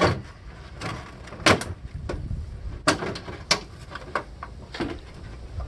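Irregular knocks, clunks and scrapes of a large CRT television's parts being handled and pulled during a teardown, about half a dozen sharp hits spread across the few seconds.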